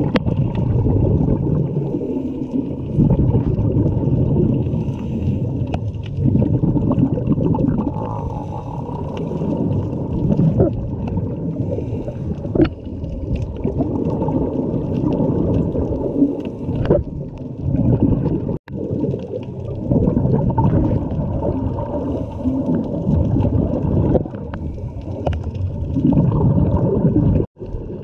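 Muffled underwater sound picked up by a GoPro in its waterproof housing: a scuba diver's regulator breathing and exhaled bubbles gurgling in a loud, uneven low rumble, with scattered clicks. The sound cuts out briefly twice, in the second half.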